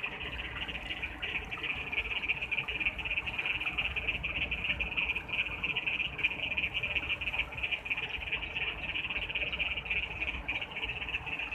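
A dense chorus of frogs calling, a steady high-pitched trilling din made of rapid pulses, with a low rushing noise underneath.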